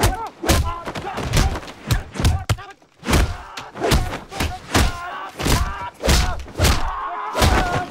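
Film fight sound effects: a rapid series of punch and kick impacts, about two to three thuds a second, with the fighters' grunts and shouts between them, and a brief lull just before the middle.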